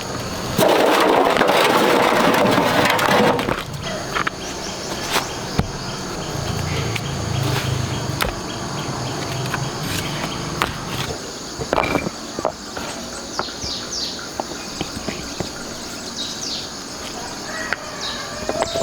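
A loud rough scraping or rasping noise lasting about three seconds near the start, then a steady high insect drone with scattered knocks and taps and a few short chirps.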